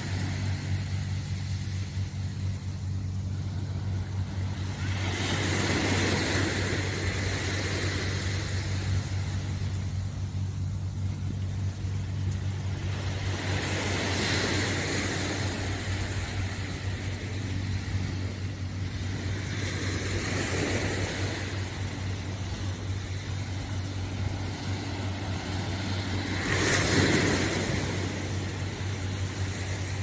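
Small waves wash onto the sandy shore about every seven seconds, each surge lasting a couple of seconds, over a steady low hum.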